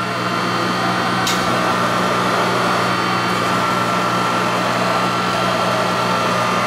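Steady mechanical hum of workshop machinery, holding a few fixed tones, with a single short click about a second in.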